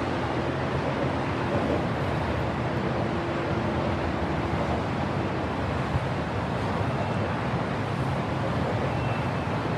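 Steady outdoor traffic noise with a faint low hum running under it; no single event stands out.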